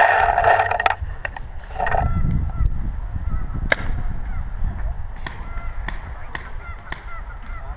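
Goose-like honking calls repeating throughout, with a single sharp crack a little under four seconds in.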